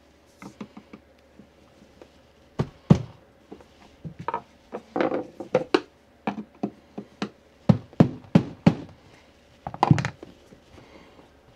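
Screwdriver prying and knocking at the glued seam of a plastic lithium battery case: a run of sharp knocks and clicks, irregular, bunched more thickly a little before the middle. The glued lid is not giving way to the screwdriver.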